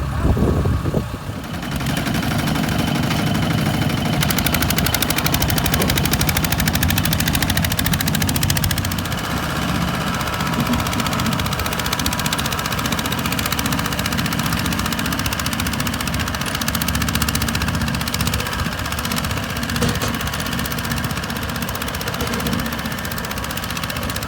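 Diesel farm tractor engine running steadily with a rapid, even knocking beat, settling into its steady run a second or two in.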